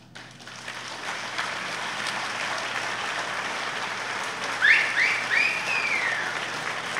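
A large crowd applauding, building up over the first second into steady clapping, with a few shouted cheers rising and falling about two thirds of the way through.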